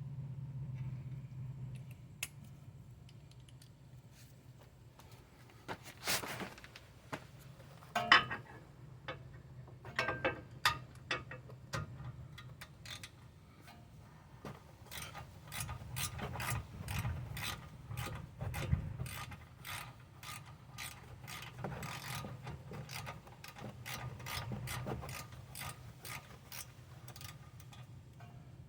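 Ratchet driving a 7 mm Allen bit, clicking as it is swung back and forth to undo the rear brake caliper-to-bracket bolts. There are scattered knocks early on, then a long run of regular clicks at a few per second through the second half, over a low steady hum.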